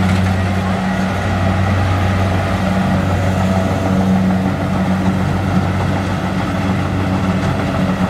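Kubota DC-70Plus combine harvester running steadily while cutting rice, its diesel engine giving an even low hum.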